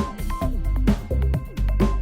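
Background music with a steady electronic drum beat and a bass line.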